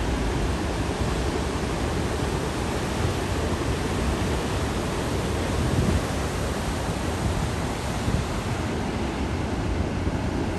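Ocean surf from a storm swell breaking and washing in, a steady rush of noise with no letup.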